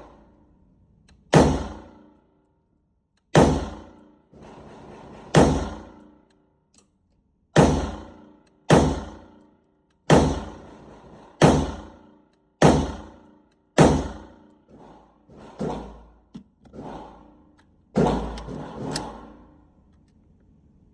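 Gunshots fired one at a time, about ten loud ones spaced a second or two apart, each trailing off in a short echo. Several fainter shots fall in between in the last third.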